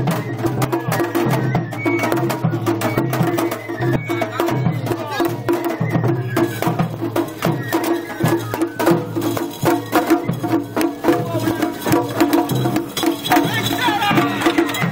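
Japanese festival float music (hayashi): taiko drums struck in a fast, steady rhythm, with sharp wooden clicks among the beats.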